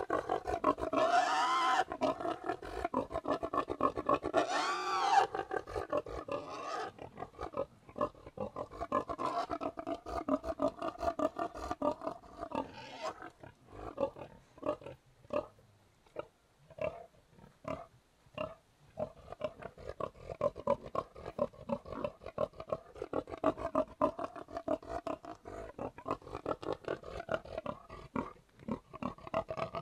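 Pigs grunting. Two loud squealing calls come in the first few seconds, then a long run of short, quick grunts.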